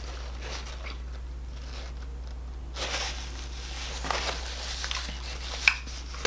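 Quiet sounds of a person eating a burger, with a few soft rustles and a sharp click near the end, over a steady low hum.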